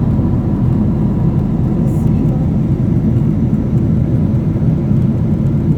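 Steady low cabin noise of an airliner in flight: engine and airflow noise heard from inside the passenger cabin, with a faint steady tone above it.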